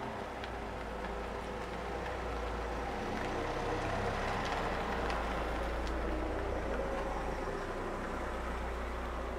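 Estate car driving slowly along a narrow lane, a low steady engine and tyre rumble that swells a little as it comes close, about four to seven seconds in.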